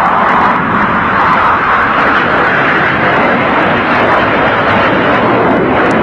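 Jet engines of a US Navy Blue Angels F/A-18 Hornet flying low overhead: a loud, continuous roar whose pitch sinks as the jet passes over.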